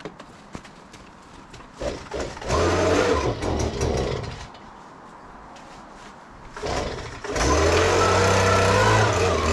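Handheld leaf blower's small engine revving up about two seconds in, easing back to a low idle near the middle, then running steadily at high revs from about seven seconds in.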